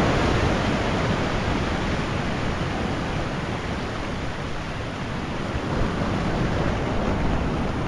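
Ocean surf washing over the foot of a rock ledge: a steady rushing wash of water with no distinct breaks.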